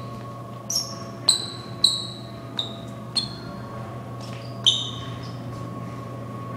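A handful of sharp metallic clinks, each ringing briefly with a high bright tone, spaced irregularly over the first five seconds, over a steady electrical hum.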